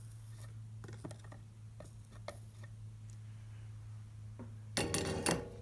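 Light, scattered clicks and taps as a copper-foiled stained glass box is handled on the work table, then a short, louder rattle of glass near the end as the piece is shifted. A steady low electrical hum runs underneath.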